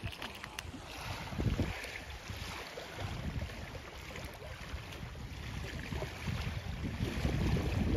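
Wind buffeting the microphone over choppy river water lapping, with a few brief splashes of a hooked fish thrashing at the surface in the first second.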